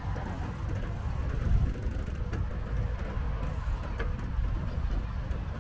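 Steady low rumble of wind and rolling noise from a moving bicycle, with two faint clicks in the middle.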